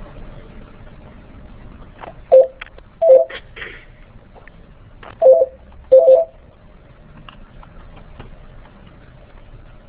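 Four short electronic telephone beeps over a conference-call line, in two pairs about three seconds apart, each beep two tones together, over faint line hiss.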